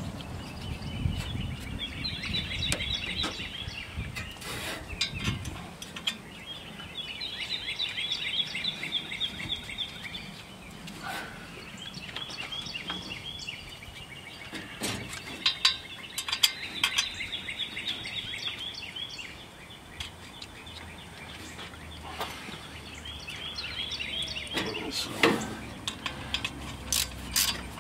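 A songbird singing rapid high trills in runs of a couple of seconds, about five times, over scattered sharp metallic clicks and knocks of hand tools working on the fan and pulley of a 1964 Ford Falcon engine.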